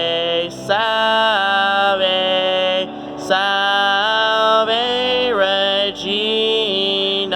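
Church organ playing a hymn while a singer holds long notes over it, in phrases that glide from note to note.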